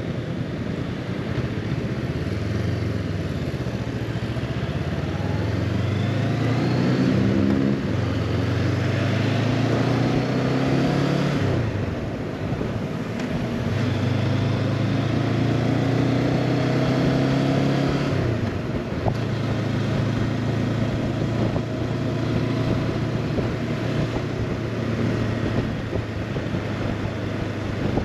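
Honda CB500X's parallel-twin engine accelerating through the gears: the pitch climbs and drops back at each shift three times, then the bike settles into a steady cruise for the last third.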